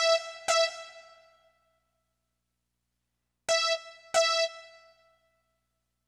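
Roland SC-55 sound module playing one bright keyboard note over MIDI from an Arduino controller: struck twice in quick succession, then twice more about three seconds later, each note ringing out and fading over about a second. The notes sound while the module's reverb level is being changed from the controller.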